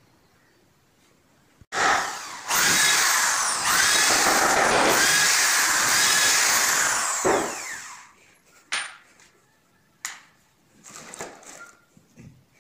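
Handheld power drill running into wood for about six seconds, its motor pitch rising and falling as it works, then stopping and followed by a few light knocks.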